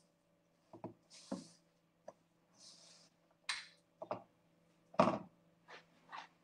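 Spatula scraping and knocking against a metal mixing bowl while stirring stiff salt dough that is starting to come together. A few separate scrapes and taps, the loudest about five seconds in.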